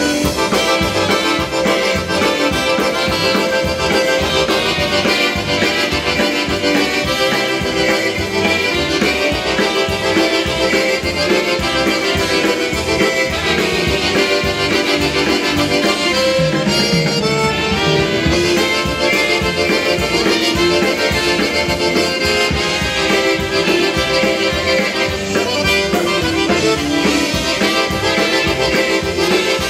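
Polka band playing an instrumental passage without vocals, the accordion leading over a steady beat.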